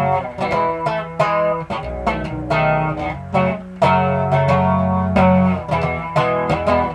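Five-string bass, restrung BEAD and tuned up a perfect fifth, playing a repeating instrumental riff of plucked notes between sung lines.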